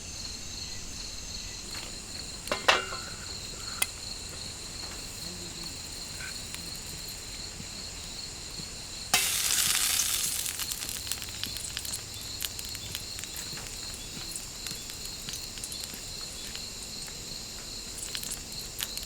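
Tropical forest insects chirring steadily in a pulsing chorus. A few sharp knocks come about three seconds in, and about nine seconds in a sudden loud hiss starts and fades away over a second or two.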